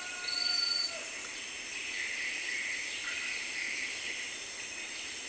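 Steady high-pitched insect chorus from the riverside vegetation, with one short, high, steady whistle-like note about half a second in.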